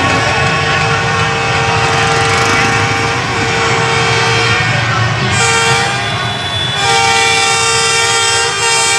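Many horns blowing at once from a dense crowd of motorbikes, long overlapping held blasts over the steady noise of the traffic. More horns join in about five seconds in.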